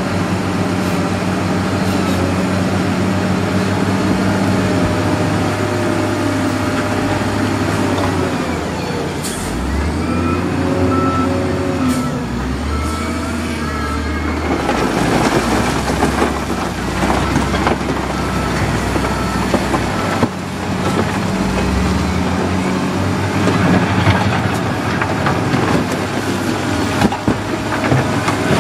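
Diesel engines of wheel loaders working, running steadily and then revving up and down as they push rock and dirt. A reversing alarm beeps in short runs, and rock knocks and scrapes under the buckets through the second half.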